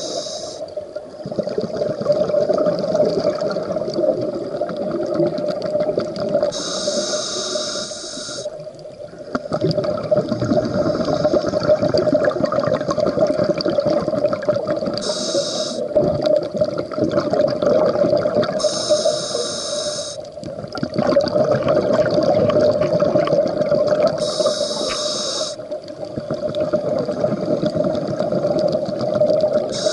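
Scuba breathing heard underwater through a regulator: short high hissing inhales come five or so times, with long stretches of rumbling, gurgling exhaled bubbles between them.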